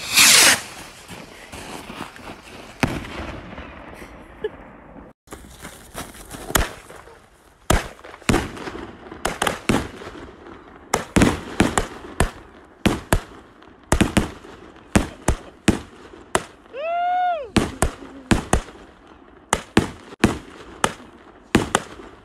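Consumer firework going off on the ground: a loud hissing rush right at the start, then a long run of sharp bangs from about five seconds in, fired at irregular spacing as shot after shot of sparks goes up.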